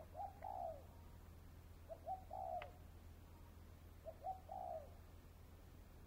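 Spotted dove cooing: three phrases about two seconds apart, each a couple of short notes followed by a longer coo.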